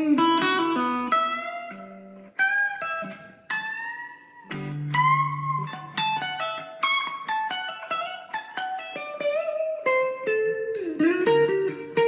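Guitar playing a melodic line of single plucked notes, several of them bent or slid in pitch, with lower notes sounding underneath.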